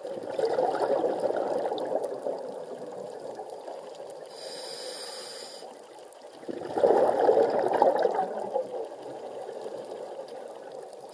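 Scuba diver breathing through a regulator underwater: two long rushes of exhaled bubbles, about a second in and again around seven seconds, with a quieter hiss of inhalation between them.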